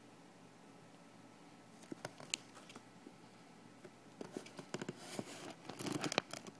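Faint handling noise from a phone held close to a plastic ant farm: a few light clicks about two seconds in, then a denser run of clicks and rubbing near the end.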